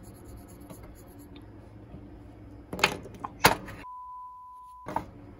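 A couple of sharp knocks about three seconds in, then a steady one-second test-tone beep, the bars-and-tone signal, which starts and stops abruptly over otherwise dead silence.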